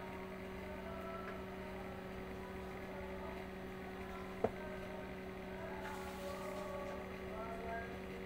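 Steady low electrical hum, with one sharp click about four and a half seconds in.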